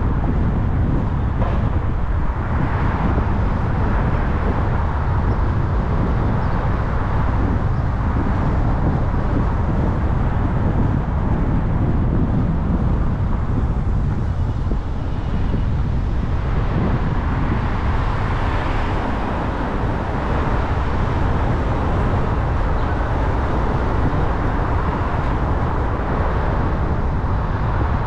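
Steady road noise of a car driving in traffic: a continuous low rumble with tyre hiss. It swells a few seconds in and again a little past the middle.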